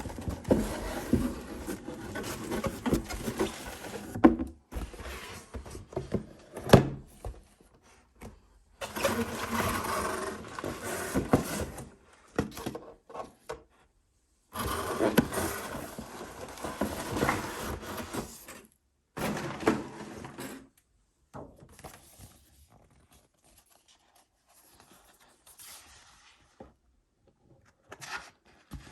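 Table tennis equipment packaging being handled and opened: rustling and scraping in separate stretches, with a couple of sharp clicks and knocks, broken by sudden silences.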